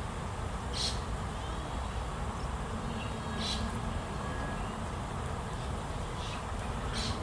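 Steady outdoor background noise with about four brief, high-pitched chirps scattered through it.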